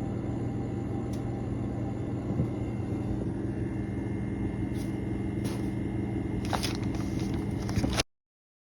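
Steady low mechanical hum with a few faint clicks and crackles; the sound cuts off abruptly near the end.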